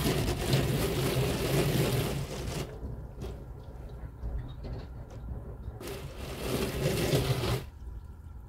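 Car wash spray water drumming on the windshield and body, heard from inside the car's cabin, with a deep machine hum under it. It runs hard for the first two and a half seconds, drops away, comes back briefly about six seconds in, and stops about a second before the end.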